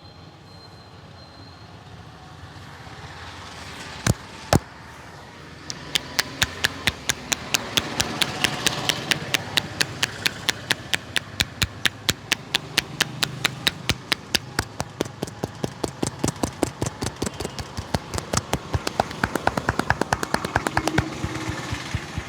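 Hands slapping a head in rapid rhythmic pats during a head massage, about four to five sharp pats a second starting about six seconds in, after two single slaps. Street noise runs underneath.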